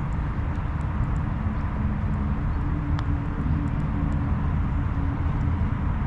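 Steady low outdoor rumble with a faint distant engine hum, and a single light click of a putter striking a golf ball about three seconds in.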